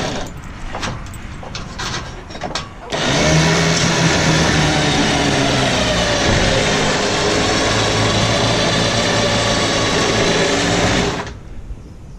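A motor running steadily for about eight seconds, starting abruptly about three seconds in and cutting off suddenly, as the wrecked Jeep is pulled up for loading. A few clicks and knocks come before it.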